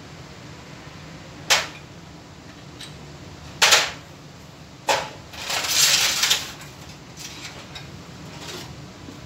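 Metal clunks and rattles as a PPR pipe socket-fusion welder's aluminium heating plate and brass dies are handled and laid into their steel carrying case: a sharp click, two heavy knocks, a longer scraping rattle, then a few light ticks.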